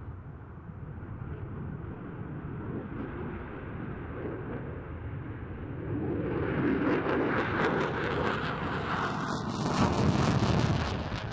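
F-35B Lightning's Pratt & Whitney F135 jet engine in a tight turn with the afterburner lit, a low rumble that grows louder about six seconds in and takes on a crackle, loudest near the end.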